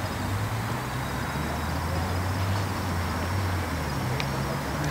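A steady low engine-like hum that shifts in pitch a couple of times, with a faint high whine over it.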